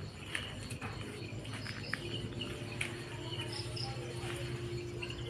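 Crickets chirping steadily over a low hum, with a few short clicks.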